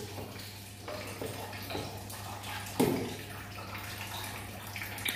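Wet slopping and dripping of goat's-milk curd and whey as it is ladled from a tub into cheese moulds, with a sharp knock about three seconds in, over a steady low hum.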